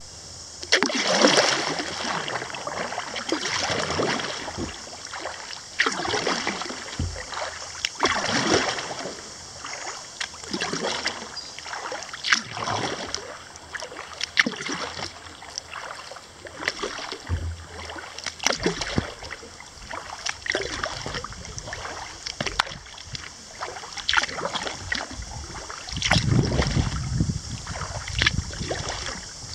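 Kayak paddle strokes on calm river water: the blade dips, pulls and splashes about once every two seconds, with water dripping between strokes. A low rumble rises near the end.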